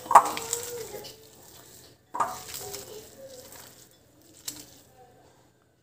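Sliced raw onions being squeezed and tossed by hand in a glass bowl. There are two sharp knocks against the glass with a short ring, one just after the start and one about two seconds in, and a faint click near the end.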